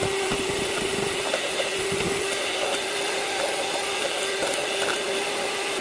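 Handheld electric hand mixer running at a steady high pitch, its wire beaters whisking egg-and-oil mayonnaise in a stainless steel bowl; right at the end it is switched off and winds down with a falling pitch.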